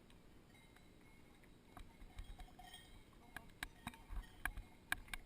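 Cowbells on grazing cows clanking irregularly: scattered sharp metallic strikes that come thicker from about two seconds in.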